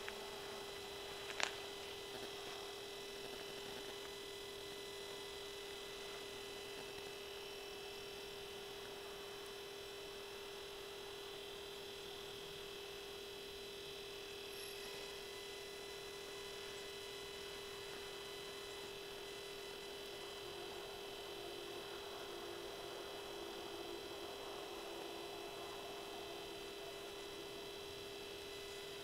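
Steady, faint electrical hum held on one pitch, with a single small click about a second and a half in.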